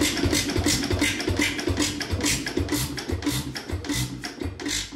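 Air-cooled Bamford hit-and-miss stationary engine running, its exhaust firing in a regular beat about three times a second, fading toward the end.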